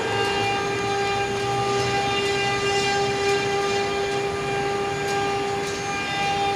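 Hongfa 4-axis rotary CNC engraving machine giving a steady electric whine at one unchanging pitch, with a stack of overtones above it.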